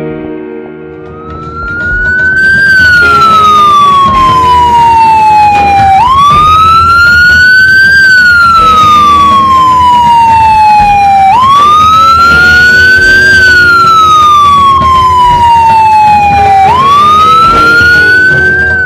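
Loud siren sound effect, a single wail that climbs and falls slowly, about every five seconds, starting about two seconds in. In the play it stands for an ambulance arriving.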